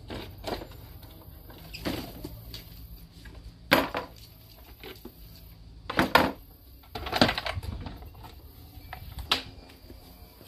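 Hard plastic knocks and clatter as a Jeep Wrangler JK's air intake box is pulled apart by hand. There are several sharp knocks, the loudest about four, six and seven seconds in.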